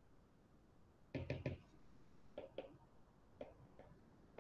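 A few light taps and knocks from a pen on a writing tablet: a quick cluster of three about a second in, then single taps spaced through the rest.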